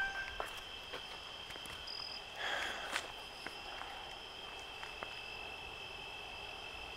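Steady, high-pitched chorus of night insects, with a brief rustle about two and a half seconds in and a few faint clicks.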